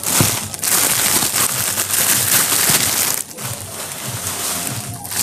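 Clear plastic packaging crinkling and rustling as it is handled, loudest for the first three seconds and then quieter.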